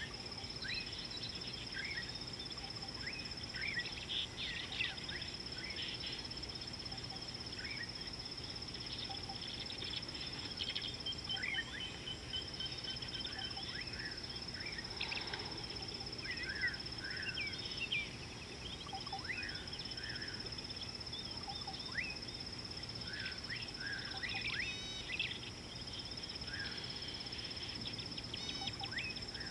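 Wild bush ambience: many short bird calls, chirps and whistles coming irregularly throughout, over a steady high-pitched insect drone.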